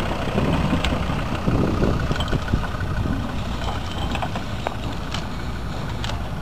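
Off-road 4x4's engine running steadily as it drives up a rough dirt track, with a few sharp clicks scattered through.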